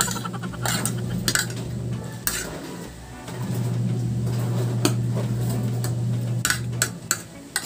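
Spoon and fork clinking and scraping against a ceramic plate and a small bowl during eating, with scattered sharp clinks and a quick cluster of them near the end. A steady low hum runs underneath, dropping out briefly around the middle and again near the end.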